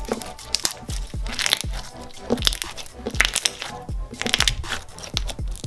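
Thick purple slime being squeezed and pressed by hand, giving a string of sharp crackly pops and squishes, over background music with a deep, regular kick-drum beat.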